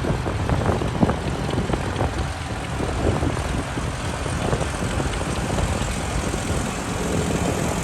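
Antique farm tractor engine running steadily as the tractor drives slowly past.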